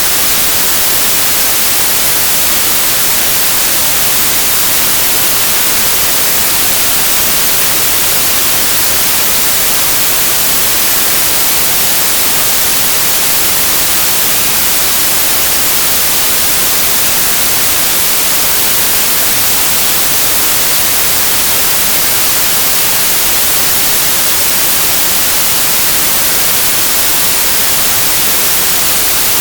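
Steady, unchanging hiss like white noise, bright and even, with no rhythm or change in loudness.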